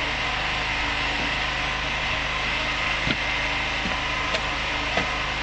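Old Volvo Viking army truck's diesel engine idling steadily, with a few light knocks over it.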